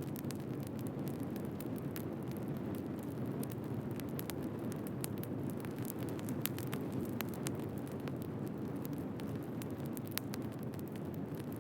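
Wood fire burning and crackling: a steady low rush of flame under frequent, irregular sharp crackles and pops from the burning logs.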